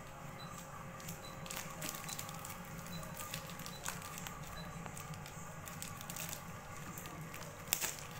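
Scissors cutting and poking at a taped parcel's wrapping: scattered scratchy crinkles and clicks, the sharpest one near the end, over a steady low hum.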